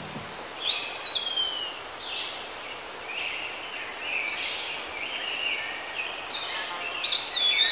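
Wild birds calling in a forest over a faint steady outdoor hiss: a high whistled call falling in pitch about a second in, scattered short chirps after it, and another call near the end.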